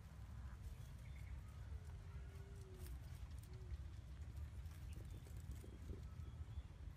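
Low steady outdoor rumble, with a few light rustles and snaps of twigs and leaves as a stick is poked into a leafy bush, more of them about five seconds in.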